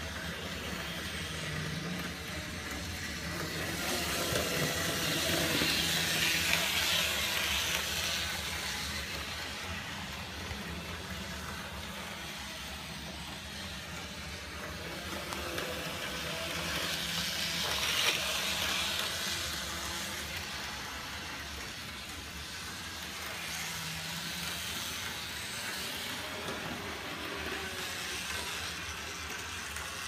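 Model train locomotive running on its track: a steady whirring rail noise that swells louder twice.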